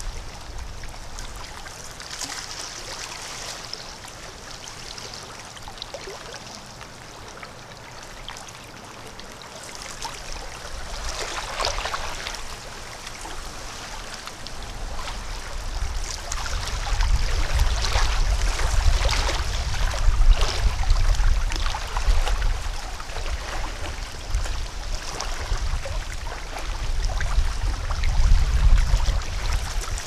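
Lakeside nature ambience: a steady rush of moving water, with a low rumble underneath that swells louder from about halfway through.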